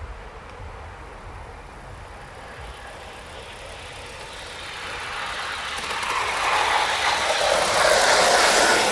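Gauge one live-steam model tank locomotive running on the garden track. Its steam exhaust and wheel noise grow louder as it approaches, and are loudest near the end as it passes close.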